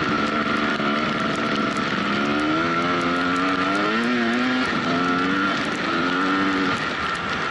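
Off-road motorcycle engine under way, its note climbing in pitch several times as the throttle is opened, with short breaks between the climbs as it shifts or backs off.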